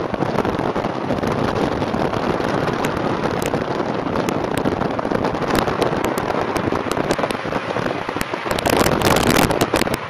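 Wind buffeting the microphone of a camera held out of a car moving at highway speed, together with road and traffic noise. It is a loud, steady rush with scattered crackling clicks, thickest about nine seconds in.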